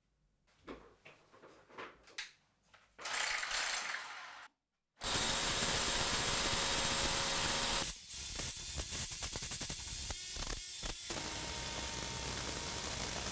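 Electric hammer drill with a long masonry bit boring through a brick wall to the outside. A few knocks and handling sounds come first. About five seconds in, the drill runs loud and steady for about three seconds, then carries on quieter with irregular rattling.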